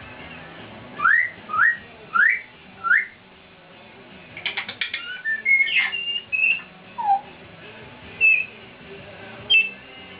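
Congo African grey parrots whistling. Four quick rising whistles come in the first three seconds, then a short run of clicks and a scatter of short whistled notes and squeaks.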